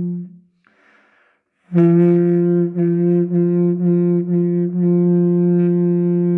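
Didgeridoo made by Paco Moreno, keyed in B, droning. The drone stops just after the start, a short soft breath-like hiss follows, and the drone starts again about two seconds in, pulsing in regular dips about twice a second.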